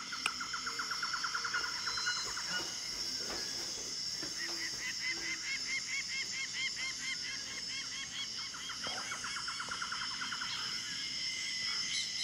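Rainforest ambience from a film soundtrack, played through a phone's speaker: insects buzz steadily while a bird gives long runs of rapid, repeated calls. One run fades after about two seconds, and another starts about four seconds in and lasts about six seconds.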